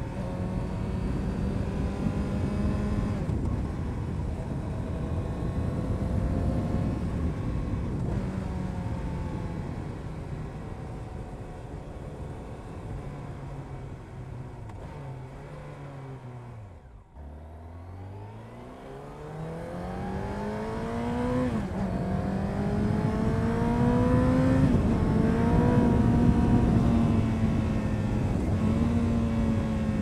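Honda CBR929RR Fireblade's inline-four engine through an Erion Racing full exhaust, ridden on the road. It starts at a steady cruise, then the engine note falls as the bike slows, nearly to idle a little over halfway through. It then rises again in several steps as the bike accelerates and shifts up through the gears, and settles back to a steady cruise near the end.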